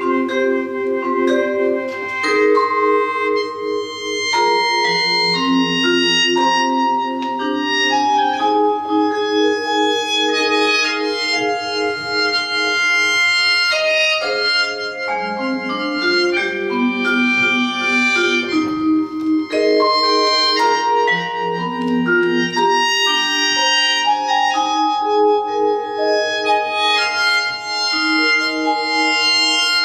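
Instrumental ensemble music: held reed chords moving slowly in the low-middle register under a stream of struck, ringing mallet-instrument notes.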